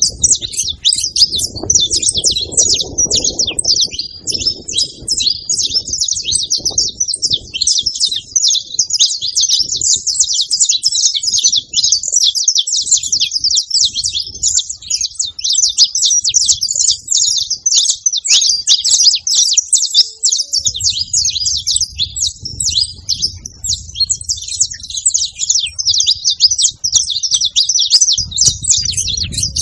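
Saffron finch singing without a break: a dense, rapid stream of high chirps and trills, over an on-and-off low rumble.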